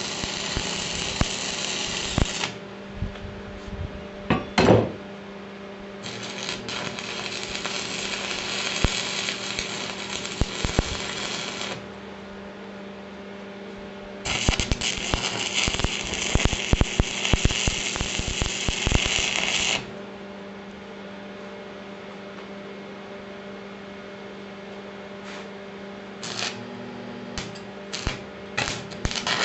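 Stick (arc) welder crackling and sizzling as steel is tack-welded: three runs of several seconds each, then a few short strikes near the end. Between runs there is a steady hum with scattered clicks, and one short, loud ringing metal knock comes about four and a half seconds in.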